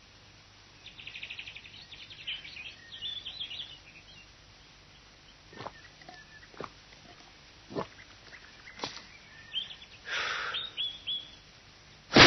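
Birds chirping softly in short clusters, with a few brief sucks on a drinking straw in the middle and a short rushing noise near the end.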